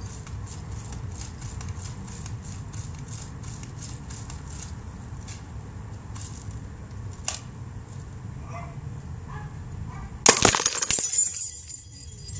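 Glass light bulb shattering when struck by a BB from a Daisy Powerline 35 air gun: a sudden loud crack about ten seconds in, followed by about a second of tinkling glass.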